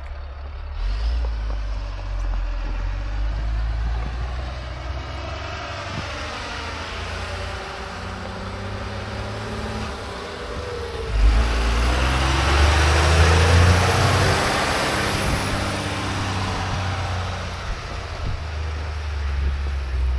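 A motor vehicle's engine running, growing louder for several seconds about eleven seconds in before easing off again.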